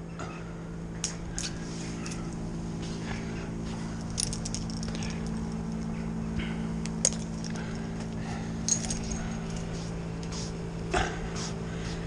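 A steady low engine drone, with scattered sharp metallic clinks of carabiners and climbing hardware on a tree climber's harness.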